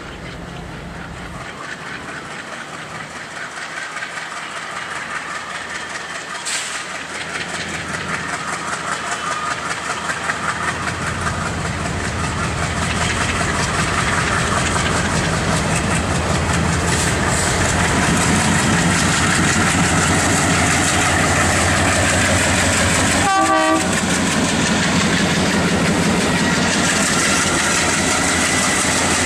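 ALCO WDM-3D diesel locomotive accelerating hard with a passenger train, its engine growing steadily louder as it approaches and draws level, with the train's wheels running over the rails. A brief horn toot sounds about three-quarters of the way through.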